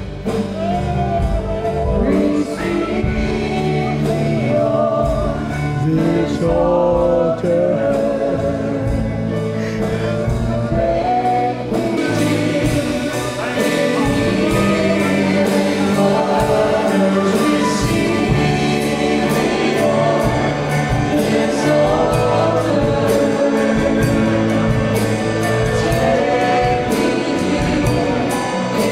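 Gospel worship music: a group of voices singing with instrumental accompaniment, growing brighter and fuller about twelve seconds in.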